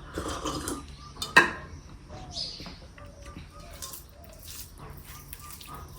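Dishes being handled at a meal, with one sharp clink of a plate or utensil about a second and a half in. Faint bird chirps in the background.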